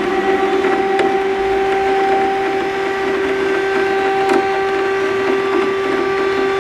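Electric civil-defence air-raid siren wailing, held steady at the top of its pitch, over heavy rain drumming on a metal window sill with scattered sharp drop ticks.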